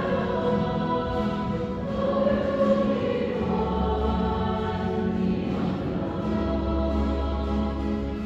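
Choir singing a slow sacred hymn in sustained notes, with a steady low bass note held underneath from about halfway through.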